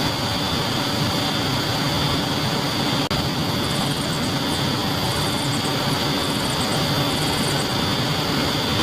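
A small motor running steadily with a constant high whine over a dense mechanical noise, dipping for an instant about three seconds in.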